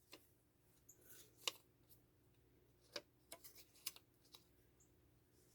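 Near silence, broken by a few faint, short clicks and taps, typical of small items being handled on a work surface.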